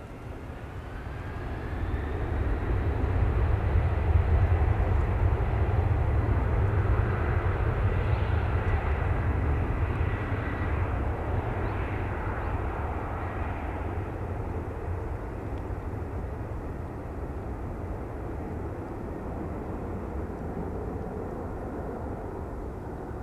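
A Boeing 747-400's four General Electric CF6-80C2 turbofans spool up to takeoff thrust at the start of the takeoff roll, heard from behind the jet. A whine rises over the first two seconds, then a deep rumble peaks about four seconds in and slowly fades as the aircraft rolls away.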